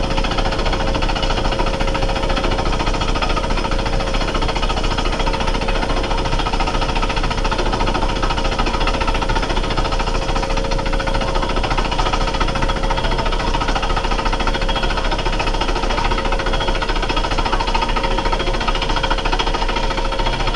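Rail-mounted horizontal rock drill running continuously, hammering into quarry stone as it bores a hole. The drilling noise is loud and steady throughout, with a steady hum under it.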